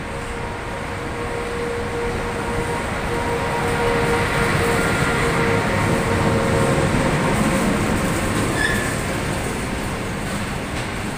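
ChS2T Czech-built DC electric locomotive pulling a passenger train slowly past at close range, followed by its coaches. It gives a steady rumble of wheels on rail with a steady whine. The sound grows louder as the locomotive goes by about halfway through, and the whine fades out after that.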